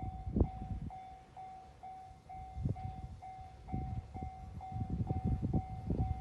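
Japanese level-crossing warning bell ringing steadily at about two strokes a second. Under it a JR 2700-series diesel train's wheels clatter over the crossing, fading early on and building again near the end.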